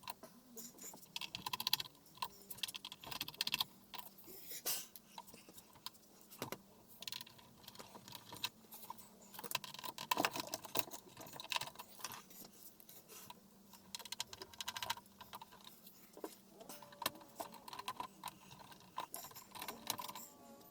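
Irregular clicking and clattering of small hard parts being handled and unfastened while a flat-screen LED TV is taken apart: screws, plastic clips and metal panel pieces.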